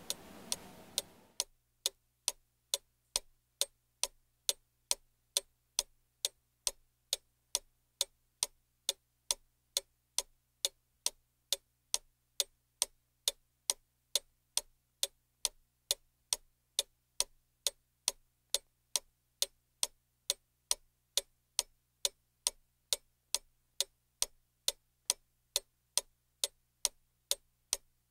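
A clock ticking steadily, about two ticks a second; a faint background hiss under it fades away about a second and a half in.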